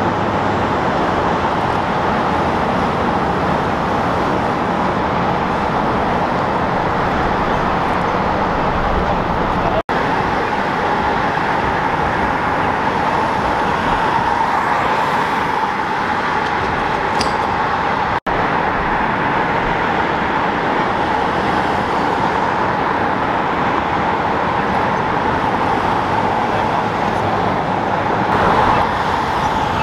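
Steady street traffic and vehicle engine noise, continuous and fairly loud, cutting out briefly twice.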